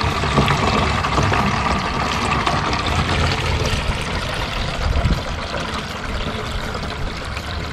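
Water poured steadily from a pot through a plastic funnel into a large plastic water jug, splashing and trickling as the jug fills.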